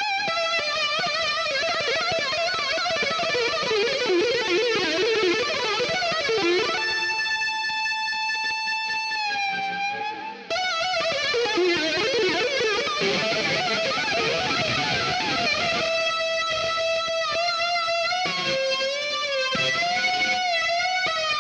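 GarageBand's Hard Rock electric guitar, a virtual touch instrument played on an iPad: sustained, distorted single notes with heavy vibrato and string bends. One note slides down and the sound briefly drops out about ten seconds in.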